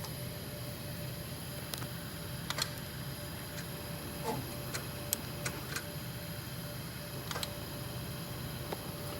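Scattered light clicks and taps of small metal parts and tools being handled during reassembly of an embroidery machine head, about ten in all, over a steady low hum.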